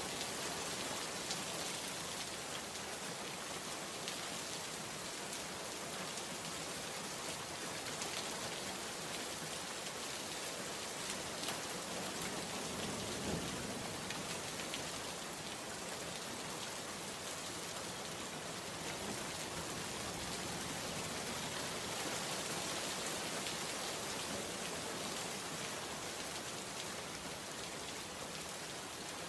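A steady downpour of rain, an even hiss of many drops, with a few louder individual splashes here and there.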